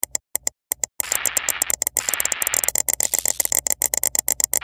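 Electronic glitch sound effects for an animated end card: crackling static cut by rapid sharp clicks, with a thin steady high tone through the second half.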